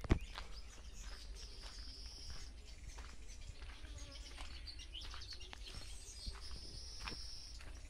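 Outdoor ambience: a high, buzzy trill twice, each about a second long, over a steady low rumble, with scattered light clicks of footsteps. A single sharp thump right at the start is the loudest sound.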